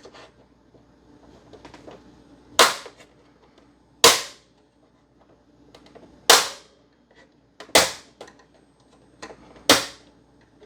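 Plastic retaining clips of an Xbox One S case snapping loose as the case is pried open, five sharp snaps about one and a half to two seconds apart, with faint scraping of the pry tool in between.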